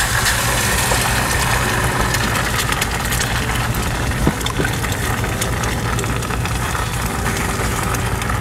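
An egg dropped into hot oil in a frying pan sizzles and spits, starting suddenly right at the beginning, with scattered small crackles. A steady low, engine-like hum runs underneath.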